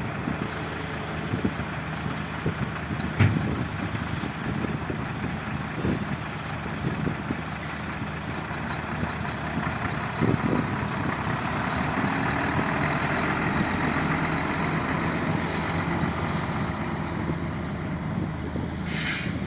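Heavy diesel truck engine running steadily, with two short air-brake hisses: one about six seconds in and one near the end.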